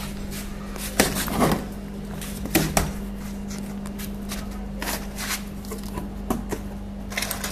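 Cardboard exhaust carton being opened by hand: packing tape torn and flaps pulled back, with scattered rustles, scrapes and knocks of cardboard over a steady low hum.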